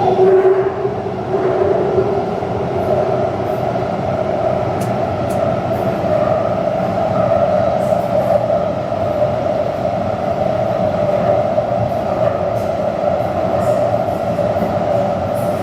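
Taipei Metro train running along the Zhonghe–Xinlu line, a steady rolling rumble with faint high ticks.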